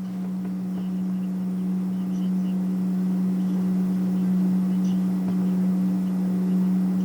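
A steady hum holding one low pitch with overtones, not rising or falling, with a few faint light clicks here and there.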